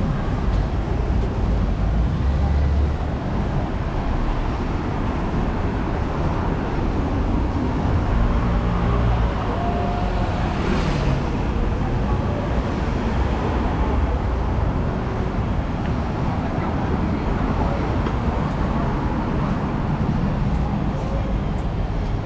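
Steady city street traffic noise, a continuous low rumble of vehicles running by.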